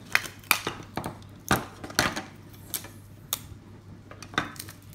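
Plastic toy packaging and small pieces being handled and pulled apart: a run of irregular sharp clicks, taps and light clatters.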